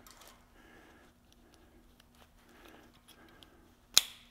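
Quiet rustling of rope and rope-rescue hardware handled with gloved hands, then one sharp metallic click near the end as the hardware is closed on the rope.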